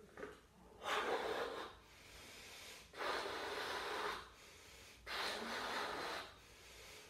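A man blowing up a latex balloon by mouth: three long puffs of breath into it, about two seconds apart, with quieter intakes of breath between.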